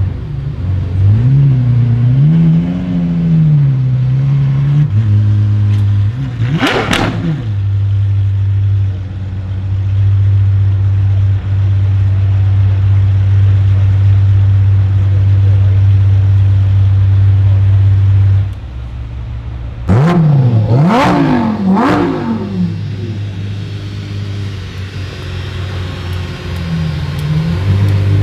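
Apollo Intensa Emozione's naturally aspirated V12 idling, with a few light throttle blips in the first few seconds, one sharp rev that rises and falls about seven seconds in, and two quick revs close together around twenty seconds in.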